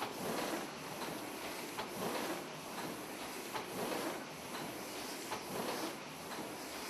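Old cylinder printing press running, a rhythmic mechanical clatter that repeats roughly once a second with each cycle of the machine.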